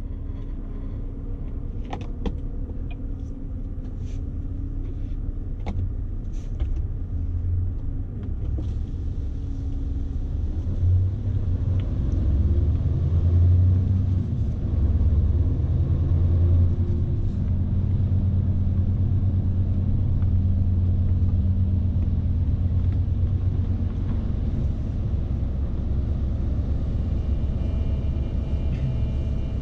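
Scania S520 truck's V8 diesel running steadily under load, heard inside the cab with a low road rumble. It gets louder about ten seconds in. There are a few light clicks in the first few seconds.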